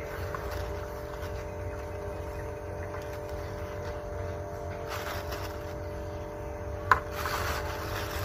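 Steady drone of a small motor running, with a plastic bag rustling and a single sharp click about seven seconds in.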